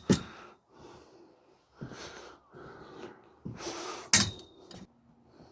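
Heavy breaths and sighs mixed with light clicks and knocks of greenhouse frame parts being handled; about four seconds in, one sharp knock leaves a short ringing tone.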